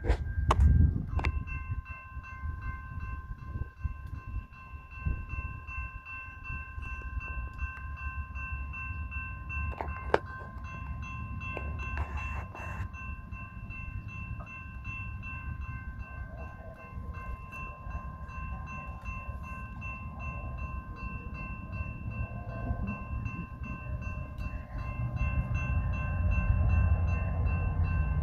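Railroad grade-crossing warning bell ringing steadily and repeatedly, over a low train rumble that grows louder near the end as the train approaches.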